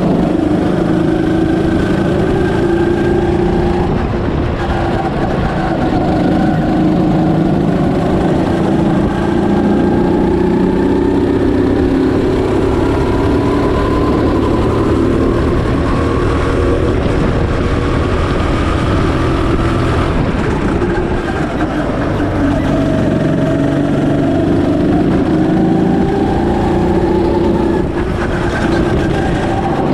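Birel N35 go-kart's engine running hard, heard from on board, its pitch repeatedly rising and falling over a few seconds at a time as the kart speeds up and slows through the lap.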